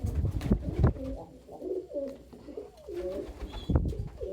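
Domestic pigeons cooing, several calls overlapping, with a few loud low thumps in the first second and again near the end.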